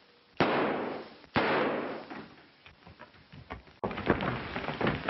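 Sounds of a brawl on an old film soundtrack: two loud sudden crashes about a second apart, each trailing off, then another crash near the end followed by a rapid clatter of knocks and scuffling.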